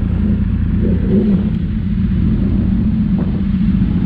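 2013 Yamaha R1's crossplane inline-four engine idling steadily, freshly rebuilt and running.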